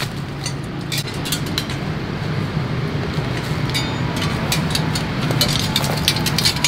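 Sharp metallic clinks of several steel sword blades knocking together as they are picked up and handled, over a steady low rumble.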